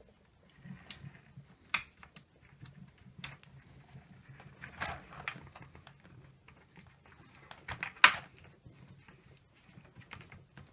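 Hands handling the plastic headrail and slats of a Venetian blind while fitting a small switch unit with two-sided tape: scattered plastic clicks, taps and rustling, with a sharp click about eight seconds in.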